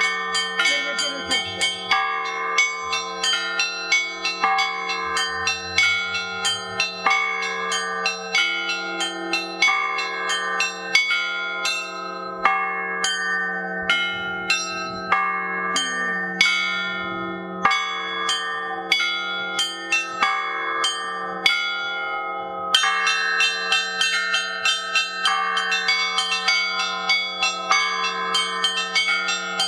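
Russian Orthodox church bells rung together: a deep bell's tone hangs on throughout while smaller bells are struck in quick, uneven patterns. The strikes thin out for several seconds in the middle, then turn fast and dense again near the end.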